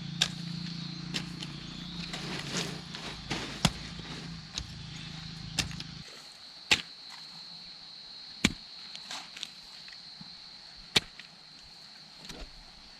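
A series of sharp, irregular knocks, roughly one every one to two seconds, over a steady high insect drone. A low hum stops about six seconds in.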